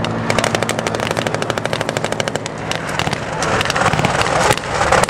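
Rapid bursts of machine-gun fire with a CV90 infantry fighting vehicle's diesel engine running under them as it drives over rough ground.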